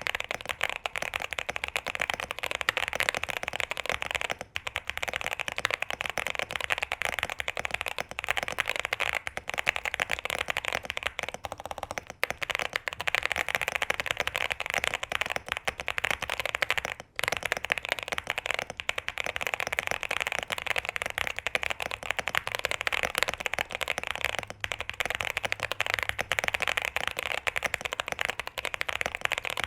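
Fast continuous typing on a QK65 65% custom mechanical keyboard modded with case, plate and PE foam, a dense run of key strikes with a few brief pauses.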